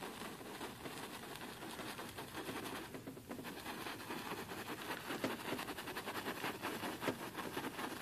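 Filbert brush scrubbing white paint onto canvas in short round strokes: a faint, rapid scratching of bristles on the canvas weave.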